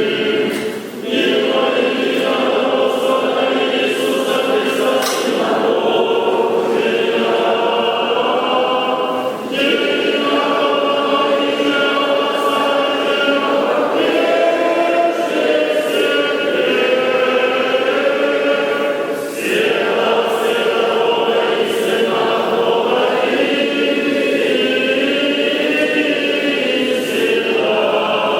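Orthodox church choir singing a liturgical chant in sustained phrases, with short breaths between phrases about a second, nine seconds and nineteen seconds in.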